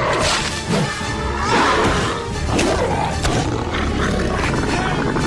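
Loud, dense cartoon soundtrack music mixed with a roar-like creature sound effect.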